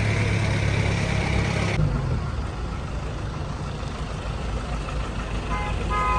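Street traffic with a vehicle engine idling in a low, steady hum that changes abruptly about two seconds in; a vehicle horn starts sounding near the end.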